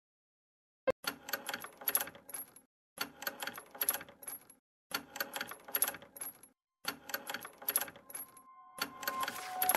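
Background music starting about a second in: a jingling, clicking percussion pattern that repeats in identical blocks about every two seconds, with sustained notes coming in near the end.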